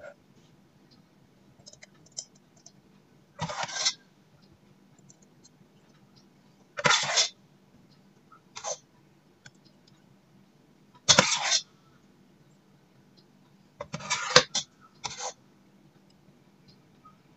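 A metal ladle scraping and clinking against the inside of a stainless steel pot as thick rice pudding is scooped out and tipped into a glass jar. There are about six short scrapes, a few seconds apart.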